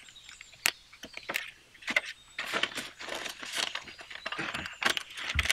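Paper banknotes rustling and crinkling as hands pull them from the envelopes of a zippered cash wallet, with light clicks and taps throughout and a soft thump near the end.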